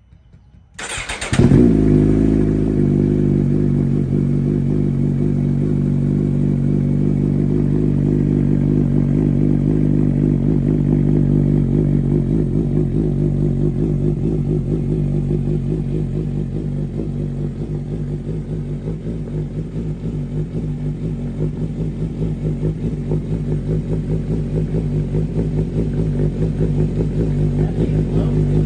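Suzuki GSX-R1000R inline-four engine breathing through an Arrow Pro Race slip-on muffler, cold-started. It cranks briefly about a second in, catches with a loud burst, then settles into a steady cold idle that dips a little midway and rises again near the end.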